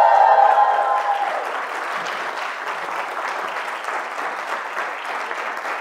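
Live audience cheering for about the first second, then applauding steadily.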